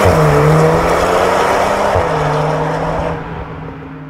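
Volkswagen Golf 8 R Variant's turbocharged 2.0-litre four-cylinder running through a valved (valvetronic) cat-back exhaust as the car drives away. The engine note drops sharply in pitch at the start, then holds steady and fades away over the last second or so.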